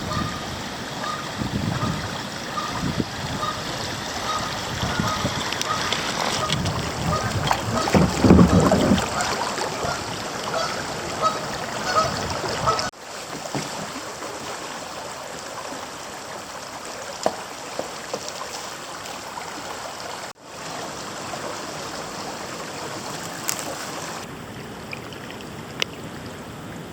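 Kayak on a creek: water splashing and rippling around the hull and paddle, with wind on the microphone, cutting off abruptly twice. A faint high note repeats about twice a second through the first half.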